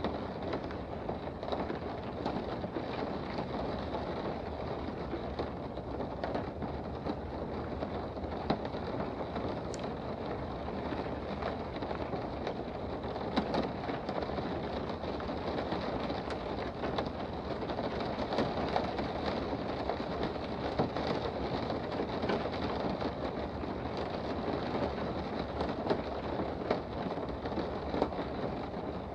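Steady rain heard from indoors: a dense, even rushing hiss with scattered sharp ticks of individual drops.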